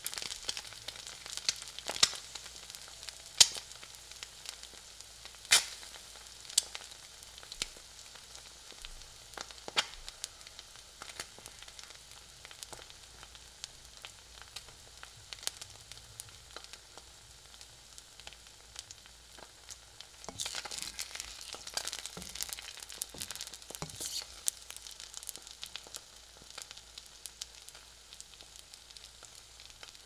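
Eggs frying in a pan: a steady sizzle with scattered sharp pops and crackles. The pops are loudest in the first ten seconds, and the crackling grows busier for a few seconds a little past the middle.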